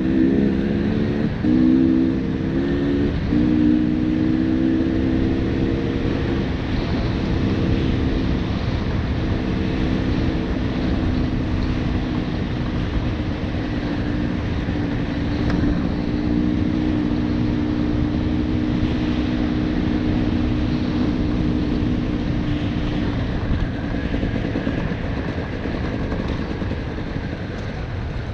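Single-cylinder two-stroke KTM 300 TPI dirt bike engine running under way, its pitch stepping up and down in the first few seconds with throttle and gear changes, then holding fairly steady before easing near the end, over a constant rumble of wind and terrain.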